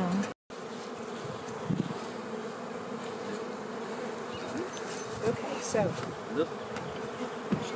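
Honey bees from opened hives buzzing in a steady hum, with single bees briefly rising and falling in pitch as they fly close past. The sound cuts out completely for a moment about half a second in.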